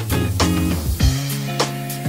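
Instrumental background music with sustained notes, a bass line and a steady beat.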